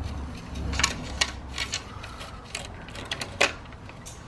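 Scattered light clicks and knocks from hands working on a road bike's frame and hydraulic brake hose, over a low rumble that fades out about a second and a half in.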